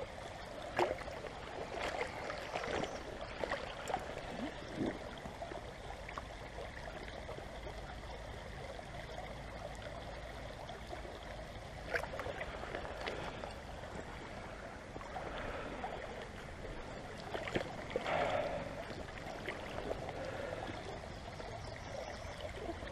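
Shallow river water flowing and rippling around a wader's legs, with a few short knocks and splashes as rocks are turned over by hand underwater.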